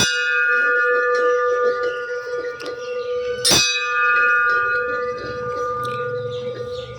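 A temple bell struck twice, about three and a half seconds apart, each stroke ringing on with a long, slowly fading metallic tone.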